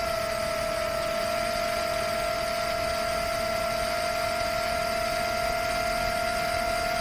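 Rekon 5 6S FPV quadcopter's motors and propellers whining at a steady pitch in cruise, heard from the onboard camera, with a steady rush of wind over the microphone. The pitch drops slightly just after the start.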